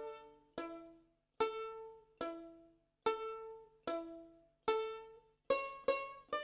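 Background music: a slow melody of single plucked-string notes, each ringing and fading away, roughly one a second, coming a little quicker near the end.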